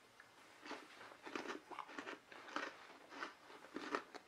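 Crisp deep-fried potli pastry being chewed, giving faint, repeated crunches about every half second from about a second in.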